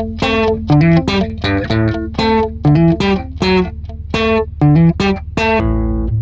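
Background music: a plucked guitar melody of quick, ringing notes over a steady bass line, moving into a new phrase near the end.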